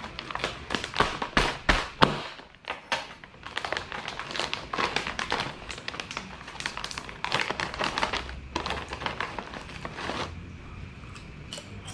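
Plastic snack bag crinkling and rustling as it is handled and pulled open, in irregular clusters of crackles.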